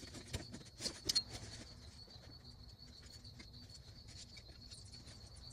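Light clicks and rattles of a climbing treestand's metal frame and straps being handled and set upright, mostly in the first second and a half. A steady high insect trill runs underneath.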